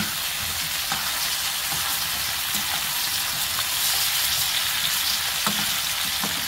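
Sliced squash sizzling as it stir-fries in oil in a nonstick frying pan, while a spatula turns it. There are a few light clicks of the spatula against the pan.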